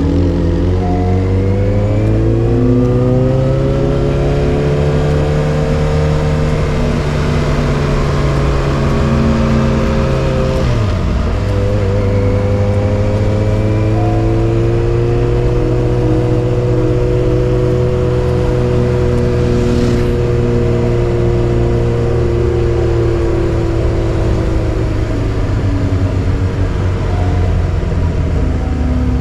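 Yamaha XJ6's inline-four engine running through a Dominator GP full exhaust with dB killer while riding. The engine note climbs as the bike pulls, then drops quickly about eleven seconds in, as a gear is upshifted, and pulls again at a steady pitch. It falls away near the end as the throttle closes.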